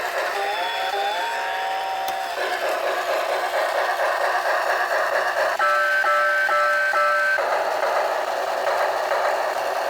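Steam-train sound effect from a Tengyun steam locomotive model alarm clock: steady rhythmic chuffing. A whistle rises in pitch and sounds for about two seconds at the start, and a second whistle chord gives several short toots a little past the middle.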